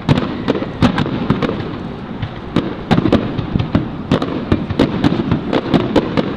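Aerial firework shells bursting in a rapid, irregular string of sharp bangs and crackles, a few a second, coming thicker in the second half.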